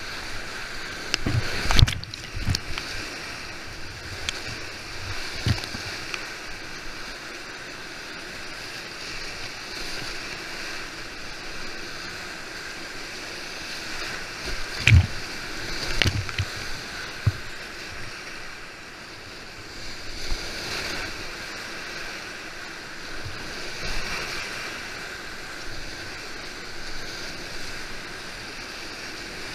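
Heavy whitewater rapids rushing steadily around a kayak running them. Splashes and thumps break through about two seconds in and again around the middle.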